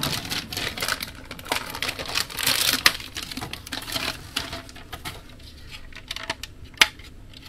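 Plastic packaging crinkling and rustling with small clicks and taps as a plastic wall power point is unwrapped and handled, the rustle loudest about two and a half seconds in.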